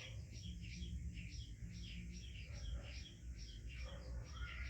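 Birds chirping in a quick, steady run of short high notes, several a second, over a low constant hum.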